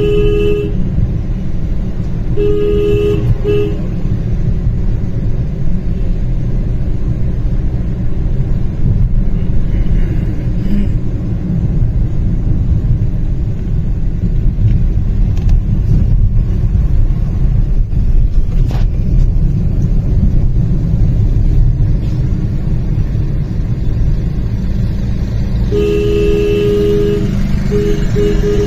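Steady low road and engine rumble heard from inside a moving car, with a vehicle horn honking briefly at the start, again two or three times a couple of seconds in, and a longer run of honks near the end.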